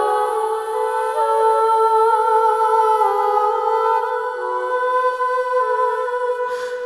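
Background music: wordless humming voices hold slow chords that step from note to note. A brief noise sounds near the end.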